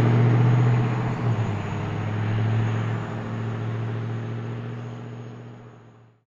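A vehicle's engine and road noise, a steady low hum that gradually fades out to silence near the end.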